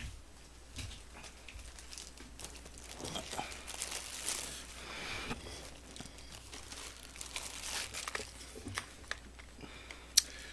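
Thin disposable plastic gloves crinkling and rustling as they are handled, with small knocks and one sharp click near the end.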